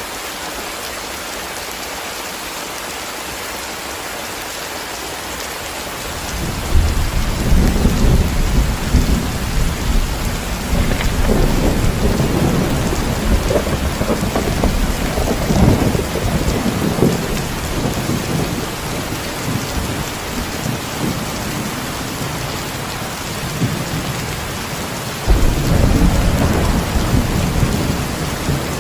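Heavy rain falling steadily, with thunder coming in about six seconds in and rolling for over ten seconds before fading. A second roll of thunder starts suddenly near the end.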